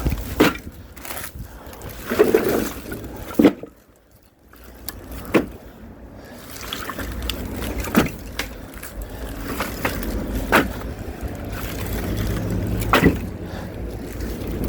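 Sharp knocks of firewood logs, one every two to three seconds, over a low steady engine hum that grows louder near the end.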